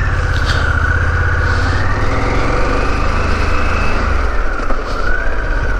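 Harley-Davidson Pan America's 1250 cc V-twin engine running steadily while the motorcycle is ridden, with a higher whine that rises a little in the middle and falls back.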